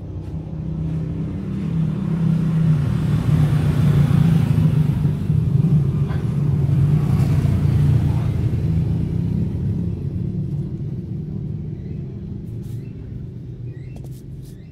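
A motor vehicle's engine running close by, growing louder over the first few seconds and slowly fading away, as a vehicle passing. A few light clicks near the end.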